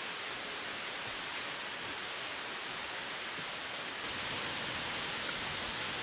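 Steady rush of falling water from a large waterfall, growing a little louder about four seconds in. A few faint footsteps on stone steps sound in the first second or two.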